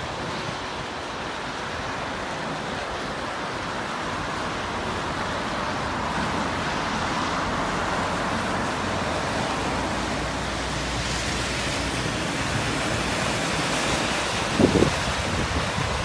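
Steady road traffic noise with wind buffeting the microphone, swelling with a low rumble through the middle as a vehicle passes. A brief double knock sounds near the end.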